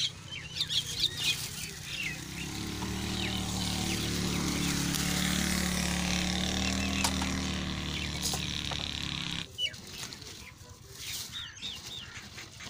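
Small birds chirping, with a steady low engine hum that builds from about two seconds in and cuts off suddenly about three-quarters of the way through.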